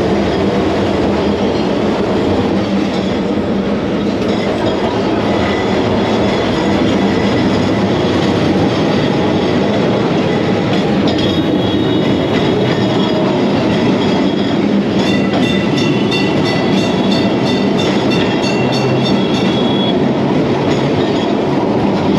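Old Kolkata electric tram running along its rails, heard from inside the carriage with the windows open: a steady loud rattle and rumble. Thin high-pitched tones come and go a little past the middle.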